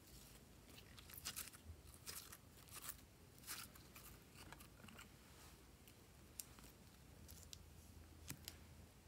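Faint, scattered crackles and squishes of glossy slime being stretched and handled by hand.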